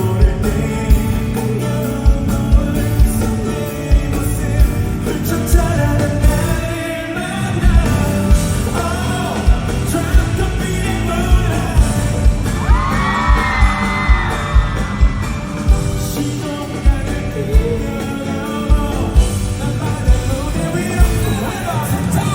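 Live pop song played loud through a hall PA, a male singer over a band with a steady thumping kick drum. Near the middle a high, sliding vocal line stands out, with some shouting or whooping.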